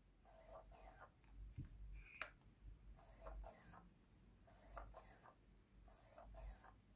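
Near silence, with about seven faint, brief whirs as the Canon EF 70-200mm f/4L USM lens's ultrasonic autofocus motor focuses again and again. The motor is close to silent.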